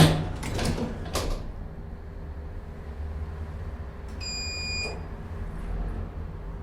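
City ambience with a steady low rumble. A loud knock and a couple of rattling clicks come at the start, then a single high electronic beep lasting under a second about four seconds in.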